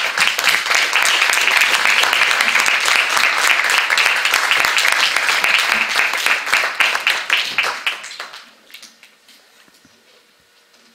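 Audience applauding: a dense run of handclaps that dies away about eight seconds in.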